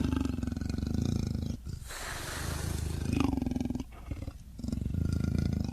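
Lion roaring: a series of long, low, pulsing roars with short breaks and a breathy exhale between them.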